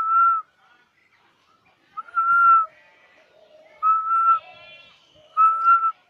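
Someone whistling four short notes, each about half a second long and all at the same pitch, with gaps of a second or two between them.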